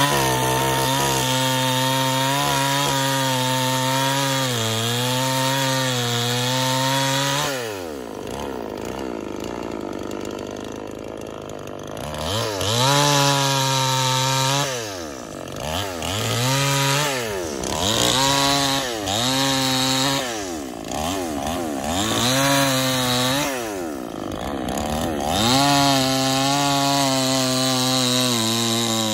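Two-stroke gasoline chainsaw running at full throttle while cutting through a tree limb. It drops to idle about seven seconds in, then is revved up again in a string of rises and falls in pitch, settling into a steady high-revving cut near the end.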